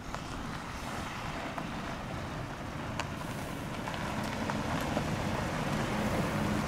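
A pickup truck and SUVs driving slowly over a dirt track toward the listener, their engine hum and tyre noise growing gradually louder, with wind rushing over the microphone and a few faint gravel clicks.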